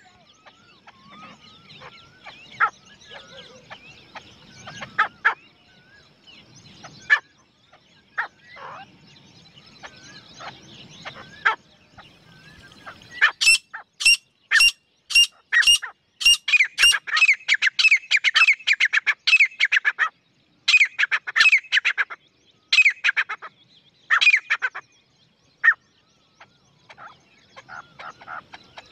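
Grey francolin calling, given as a female's call: faint, scattered calls at first, then from about halfway a loud, fast run of sharp repeated calls lasting over ten seconds, thinning out near the end.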